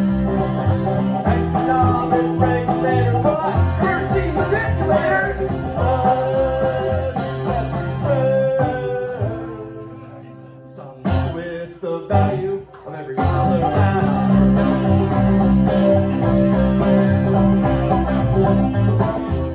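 Live instrumental break on banjo and upright double bass, with plucked bass notes in a steady pulse under the banjo picking. About halfway through, the music thins out and nearly stops. A few sharp accented hits follow, then the full groove comes back.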